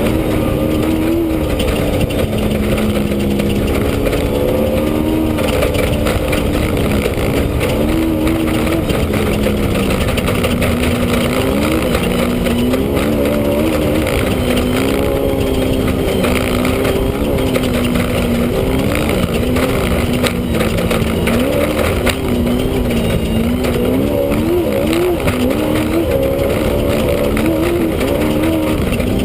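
Off-road race vehicle's engine at speed, heard from inside the cockpit, its pitch rising and falling as the throttle is worked over the course, over a constant rushing noise.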